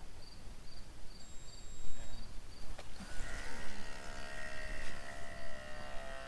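Outin Nano portable espresso maker: a single high beep about a second in, signalling the water is heated and ready, then a click near the middle and its pump starting a steady buzz as it extracts the espresso. Crickets chirp in a steady pulse until the pump starts.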